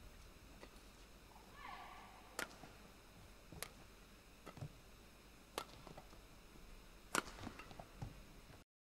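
Badminton racket strikes on a shuttlecock in a rally: sharp hits every one to two seconds, with lighter footsteps and a squeak of shoes on the court floor between them. The sound cuts off just before the end.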